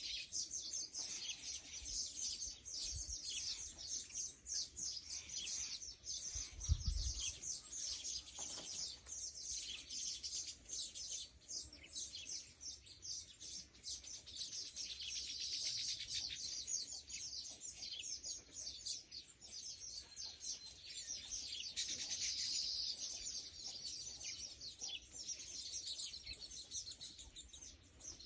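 Small birds chirping, a dense stream of rapid high-pitched chirps that goes on without a break, with one brief low thump about seven seconds in.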